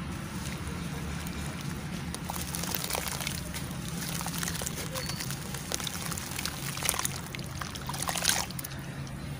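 Hands crumbling and squeezing soft charcoal pieces in a metal basin of water: sloshing and trickling water with many small crunchy crackles, and two louder splashes about seven and eight seconds in.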